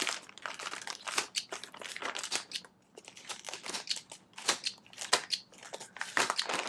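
Small snips clicking as they cut open a shipping package, with the packaging crinkling and rustling in short, irregular crackles.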